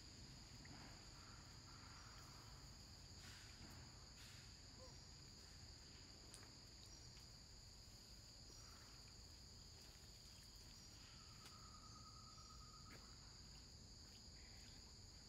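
Faint, steady high-pitched drone of insects, two held tones. About eleven seconds in, a short trilling call comes in and lasts a second or two.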